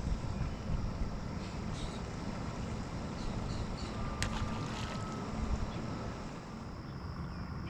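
Steady low rumble of wind buffeting the microphone out on the water, with a single sharp click about four seconds in.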